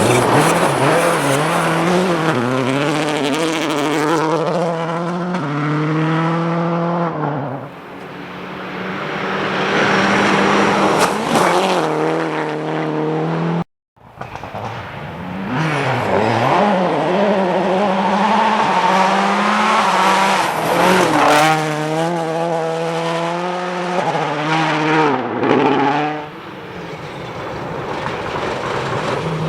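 Rally car engines driven hard on a gravel stage, the revs climbing and dropping again and again through the gear changes as the cars pass and fade away. The sound cuts out completely for a moment about halfway through before the next car is heard.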